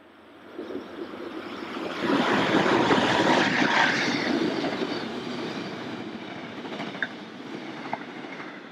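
Locomotive-hauled Mugunghwa-ho passenger train running through a station without stopping: the rumble of the wheels on the rails builds quickly, is loudest as the coaches go by, then eases off as the train recedes. Two short high squeaks sound about seven and eight seconds in.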